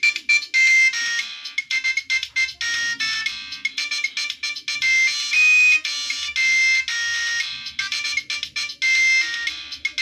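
Nokia 2608 flip phone playing a ringtone preview through its built-in speaker: an electronic melody of many quick, short notes with a few longer held ones.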